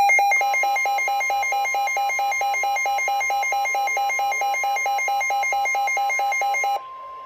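Weather radio alert: a receiver's alarm beeps rapidly, about five times a second, over the steady 1050 Hz NOAA Weather Radio warning alarm tone. The beeping cuts off near the end while the steady tone goes on. Together they signal an incoming warning, here a tornado warning.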